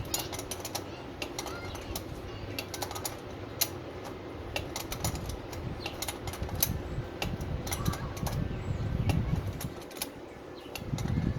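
Irregular clicks and light knocks of hand work on car parts, with low handling rumble that swells in the second half and again near the end.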